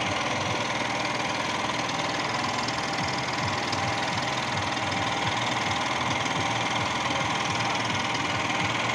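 An engine running steadily at idle, with no change in speed.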